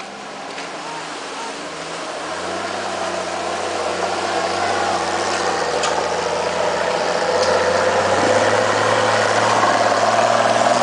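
Engine of a Toyota four-by-four pickup pulling up a muddy dirt track, growing steadily louder as the truck approaches.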